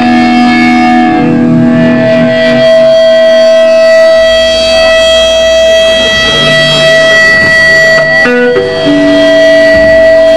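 Live band's distorted electric guitars holding long, ringing notes with a steady feedback whine; the notes change about eight seconds in.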